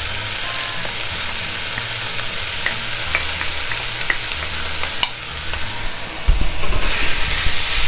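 Flaked salt cod landing in a frying pan of softened leek, onion and garlic, sizzling steadily while a wooden spoon scrapes it from a glass bowl, with a few light clicks. Near the end the wooden spoon stirs and scrapes in the pan, louder, with low knocks.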